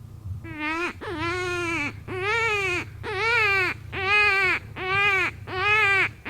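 Predator call playing a distress call for coyotes: a loud, high, wailing cry repeated about seven times, each cry rising and then falling in pitch. It starts about half a second in.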